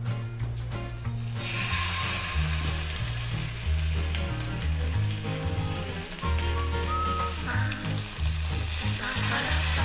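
Marinated Indian mackerel (ayala) laid into hot coconut oil in a pan. The oil starts to sizzle about a second in and goes on frying steadily, and a second fish is laid in near the end. Background music with a low bass line plays underneath.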